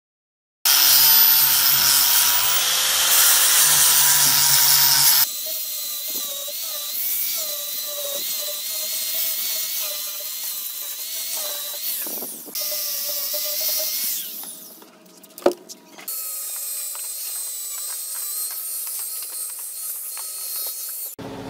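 A power tool motor running under load, with a steady whine that wavers slightly. The sound comes in several short clips that change abruptly about 5, 12 and 16 seconds in, with a sharp click about 15 seconds in.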